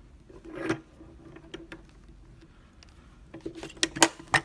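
Small metal clicks and knocks from handling a euro lock cylinder and bench vise, with one knock about a second in and a quick run of sharp, ringing clicks near the end.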